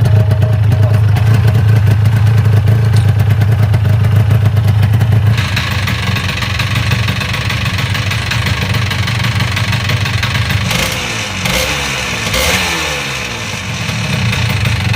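Yamaha SDR200's single-cylinder two-stroke engine running, steady at first; about five seconds in the sound changes abruptly, and from about ten seconds on it is revved up and down repeatedly.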